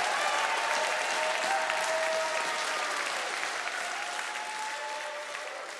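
Congregation clapping and applauding, with a few voices mixed in; the applause fades gradually away.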